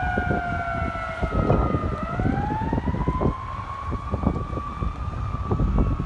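Fire department aerial ladder truck's siren wailing, heard from a distance during a code 3 emergency response. The pitch slides down, rises again about two seconds in, holds high, then slowly falls toward the end, over a low rumble.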